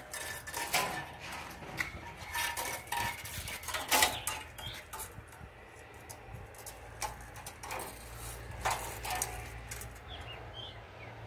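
Irregular light metallic clinks and knocks from a metal hood rack's aluminium slats and steel bar being handled.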